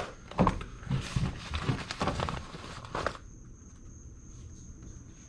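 Rustling, scraping and knocking of someone handling things for about three seconds. Then a steady high-pitched insect trill carries on alone.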